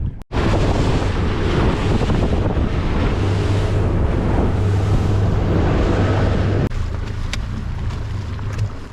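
A boat running under power: a steady engine hum under heavy wind buffeting the microphone, with wash from the water. The noise drops abruptly about two-thirds of the way through.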